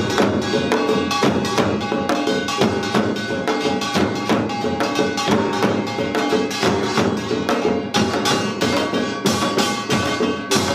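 Korean samul nori percussion ensemble playing fast, dense rhythms on janggu hourglass drums and buk barrel drums, with steady metallic ringing over the drum strokes.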